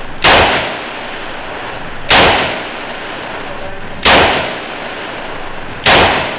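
Four heavy handgun shots from a Ruger Alaskan revolver, fired one at a time about two seconds apart, each with a short echoing ring-out.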